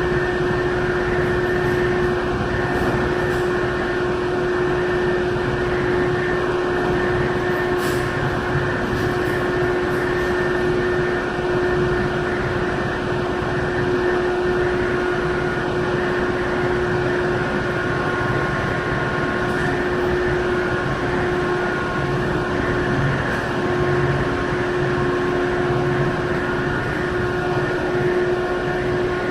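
Steady drone of a car ferry's engines and shipboard machinery heard aboard, with a constant low hum tone and no change in pitch, as the ship comes in to berth.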